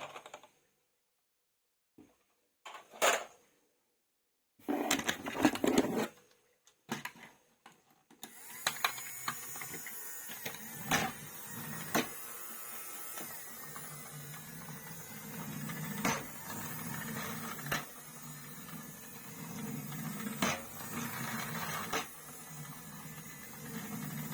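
A few plastic knocks and rustling, then a small toy motor starts whirring steadily about eight seconds in, with a low hum and sharp clicks every second or two.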